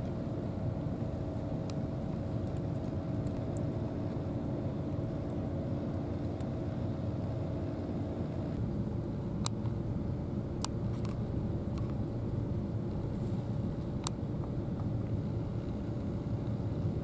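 A steady low mechanical drone with a constant hum, its pitch stepping slightly about halfway through. In the second half come a handful of sharp clicks from a cat crunching dry kibble.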